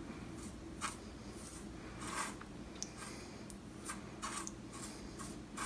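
A small brush sweeping dust and debris off the edge of a 12-inch guitar speaker's paper cone: a run of short, light, scratchy strokes at an irregular pace.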